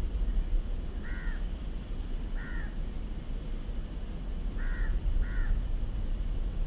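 Crow cawing: four short harsh caws, one about a second in, another about two and a half seconds in, then a quick pair near the end, over a steady low background rumble.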